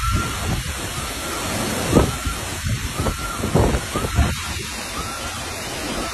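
Hurricane-force wind and heavy rain: a steady rushing noise with gusts that swell and ease, the wind buffeting the microphone.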